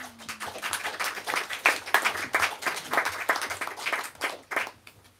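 Audience applauding: a few seconds of dense clapping that stops shortly before the end.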